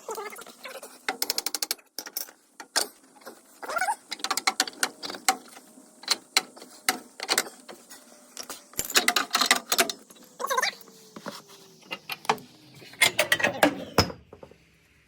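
Metal clicks, knocks and clatter as a front CV axle is worked loose and pulled out of the truck's hub and differential, with a quick run of clicks about a second in and denser clattering near the middle and near the end.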